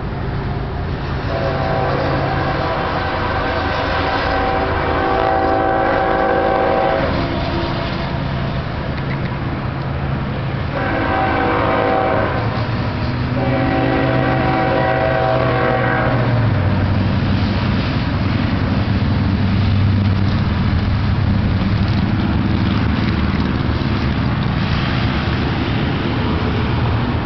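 Train horn sounding a chord: one long blast of about six seconds, then a short blast and another long one. Underneath, a steady low drone and rumble that drops in pitch about sixteen seconds in.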